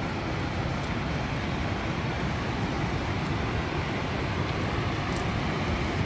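Steady rushing of a waterfall, with faint crunching footsteps on a gravel path.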